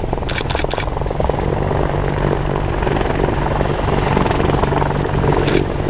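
Sikorsky CH-53E Super Sea Stallion heavy-lift helicopter running close by, a steady loud rotor chop over the drone of its three turboshaft engines.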